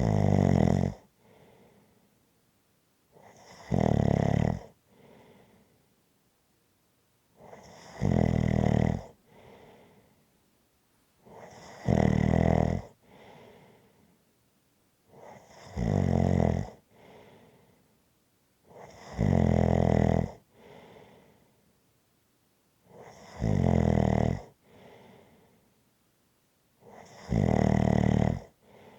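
Steady, regular snoring: eight loud, rattling snores about four seconds apart, each lasting about a second and followed by a fainter breath out.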